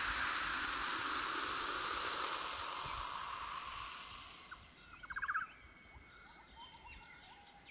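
A steady hiss that fades away over the first four to five seconds, followed about five seconds in by a short, fast trill.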